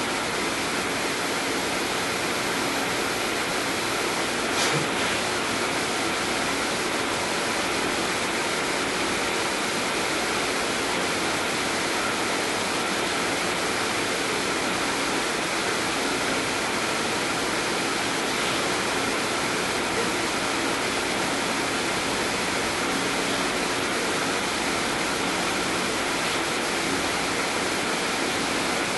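Steady, even hiss with nothing else on top of it, apart from a faint click about five seconds in.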